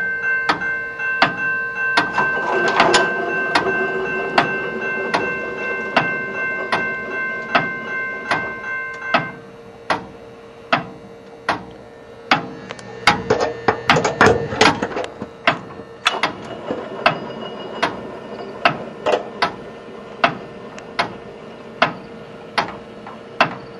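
Railroad crossing signal in operation: the crossing bell rings with regular strikes and a sustained ring until about nine seconds in, the part of the cycle when the gate is dropping, then stops. Sharp clicks a little more than one a second and a steady hum carry on to the end.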